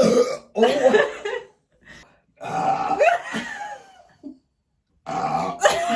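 A woman burping loudly: three long, drawn-out burps with wavering pitch, each separated by a pause of about a second.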